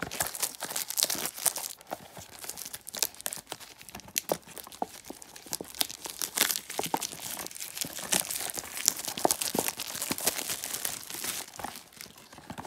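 Clear plastic shrink wrap crinkling and tearing as it is peeled off a small cardboard box by hand, a dense run of crackles that thins out near the end.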